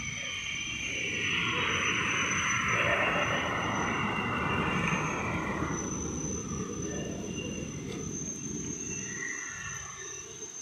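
Steady low rumble of heavy vehicle engines. A rush of noise swells about a second in and fades by about six seconds, over a thin high whine.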